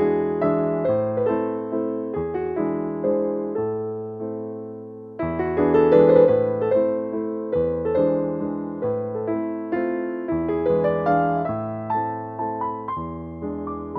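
Background piano music: a gentle melody of struck notes, each fading away, growing louder about five seconds in.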